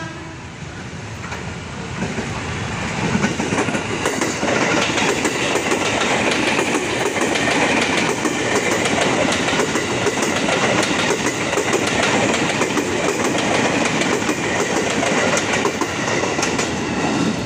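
JR 205 series electric commuter train running past at speed: a steady rumble of wheels on rail with fast clattering over the rail joints, growing louder over the first few seconds and then holding loud.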